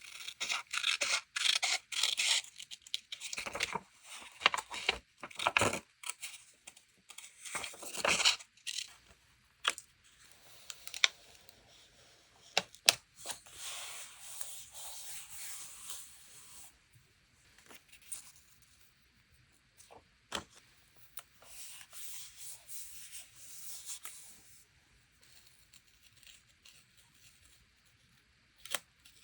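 Paper being torn by hand in a series of rasping tearing strokes, loudest in the first several seconds, followed by softer paper rustling and scattered sharp clicks of paper handling.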